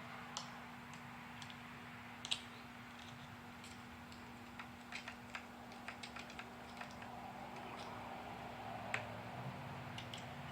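Small metal parts clicking and ticking irregularly as they are worked by hand into a piston's groove during assembly of forged LS pistons, over a steady low hum.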